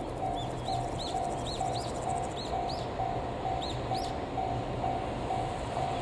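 Japanese railway level-crossing warning bell ringing steadily at about two strokes a second, with a small bird chirping repeatedly over it.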